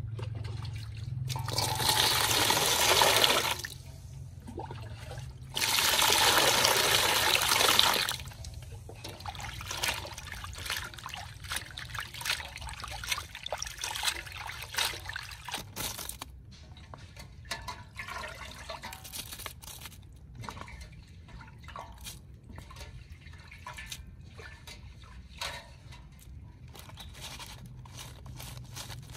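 Water poured out in two splashing pours of about two seconds each, then quieter trickling with many small clicks and splashes.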